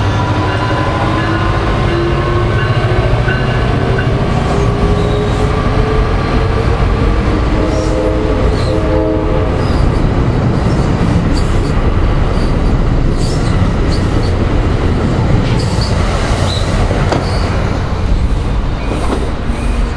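Diesel-hauled commuter train with multilevel coaches pulling past. The locomotive's engine note climbs steadily as it accelerates, under a heavy rolling rumble. From about five seconds in, the coaches' wheels add frequent clicks and short squeals, and a brief steady tone sounds about eight seconds in.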